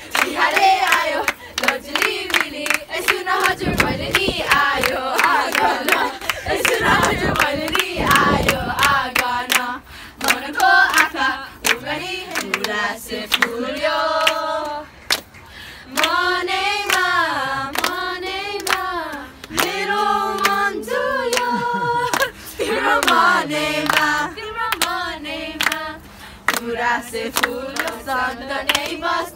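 A group of young women singing a Nepali Deusi-Bhailo carol in unison, with rhythmic hand clapping keeping time.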